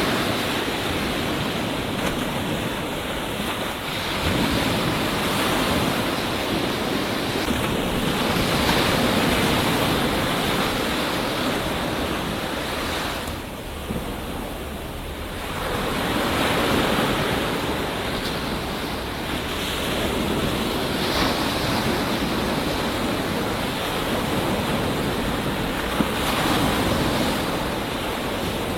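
Ocean surf breaking and washing onto a beach: a continuous rush that swells every few seconds as waves come in, with a short lull about halfway through.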